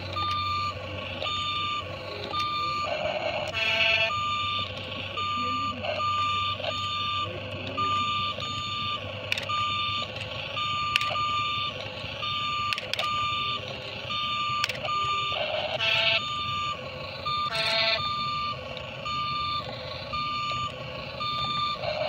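Electronic warning-beep sound effect from a toy remote-control excavator: a reversing-style beep repeating about once a second, with a few short, louder buzzy electronic tones mixed in.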